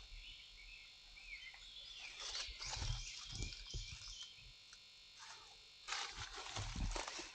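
Footsteps crunching over dry leaves, twigs and debris with dull thuds. They come in two bouts, one starting about two seconds in and another near the end.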